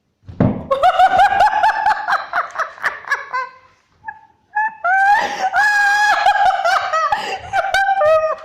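High-pitched, shrill laughter in long pulsing stretches, with a short pause about halfway through.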